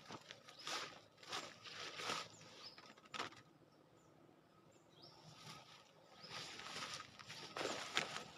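Faint outdoor sounds: short bursts of rustling and handling noise, busiest near the end, with a few brief high chirps from birds.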